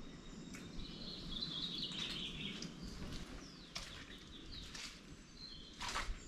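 Quiet birdsong: a warbling, chirping song for a couple of seconds about a second in, then a few short chirps, over faint background hiss. A footstep scuffs on gritty ground near the end.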